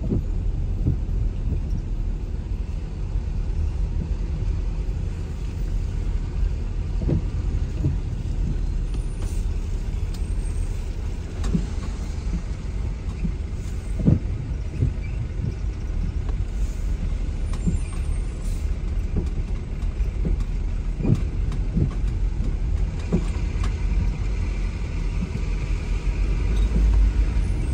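Steady low rumble of a car moving in slow traffic on a wet highway, heard from inside the car, with tyre and road noise and a few scattered short knocks at irregular moments.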